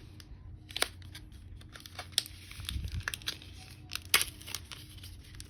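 Foil Pokémon booster pack wrapper crinkling with irregular sharp crackles as it is handled and torn open.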